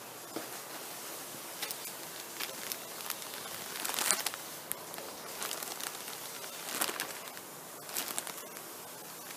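Plastic crinkling in short irregular bursts as squishies in their wrappers are handled, over a steady soft hiss; the loudest crinkle comes about four seconds in.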